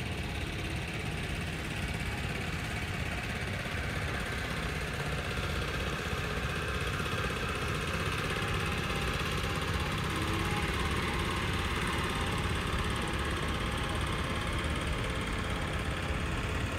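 Small wooden river boat's engine running steadily as the boat motors past close to the bank, growing a little louder toward the middle.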